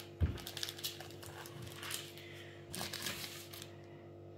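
Wooden rolling pin rolling out dough on baking paper over a wooden table: soft rolling and paper crinkling with scattered light clicks, and a low knock just after the start. A faint steady hum lies underneath.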